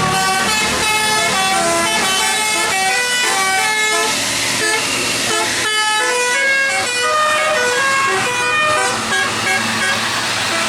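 Bus telolet horn playing a fast tune: a quick run of short, steady notes jumping up and down in pitch, several notes a second, with a brief break about six seconds in.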